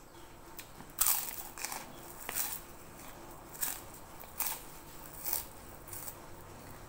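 Crunching of a crispy fried cracker (kerupuk) being bitten and chewed close to the microphone: a loud crunch about a second in, then about six more crunches, roughly one a second.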